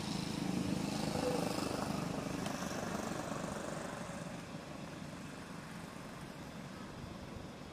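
A motor engine drone that fades away over the first four seconds or so, leaving a steady background hum.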